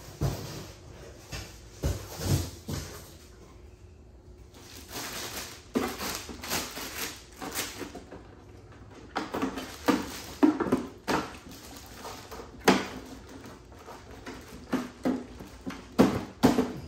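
Hands handling a plastic RC truck and its packaging: irregular clicks, knocks and rustles, with a short lull about four seconds in and a string of sharp knocks in the second half.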